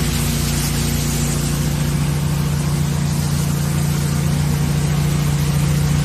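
Engine-driven high-pressure water jetting unit running steadily: a constant low engine-and-pump hum with the hiss of the water jet over it.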